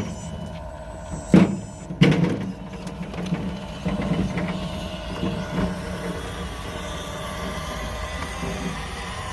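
A 1:14 scale radio-controlled tracked skid steer loader running, its small electric motors giving a steady whine, with two sharp knocks about a second and a half and two seconds in.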